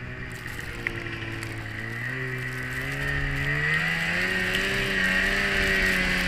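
Polaris 550 LXT snowmobile's fan-cooled two-stroke twin running under way, its revs rising about two seconds in and then holding higher, with a steady high whine over the engine.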